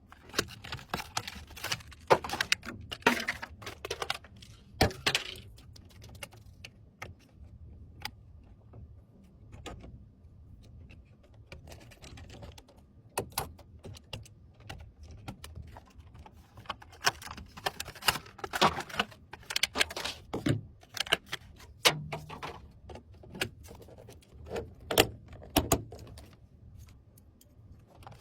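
Irregular clicks and rattles of small hard computer parts being handled and fitted during PC assembly, in busy clusters with quieter stretches between.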